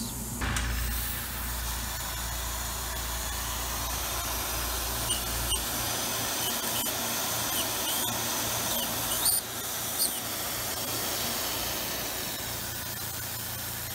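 Tormach PCNC 770 CNC mill peck-drilling a deep hole in aluminium with a small drill bit, its spindle at about 6400 rpm under a hissing flood-coolant spray. A low hum drops away about halfway, and a few short high squeaks come in the middle stretch.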